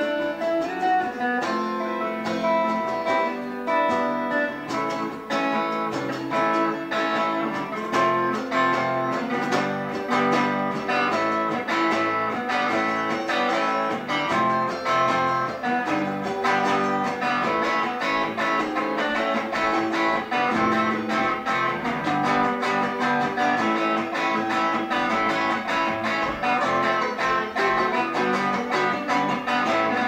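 Electric and acoustic guitars playing together, an instrumental rock and roll jam with plucked and strummed notes, the electric guitar through a small amplifier.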